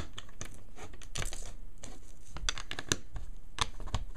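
Small plastic LEGO bricks (1x2s) being pressed down onto the studs of a plate, making a run of irregular little clicks and snaps as each one seats.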